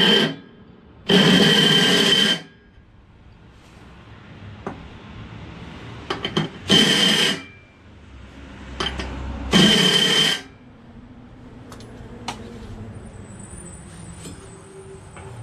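Cordless power driver running the pulley nut down onto a lawn tractor mower deck's blade spindle, in three short bursts of a second or less, each with a steady motor whine. Faint clicks of the socket and parts being handled come between the bursts.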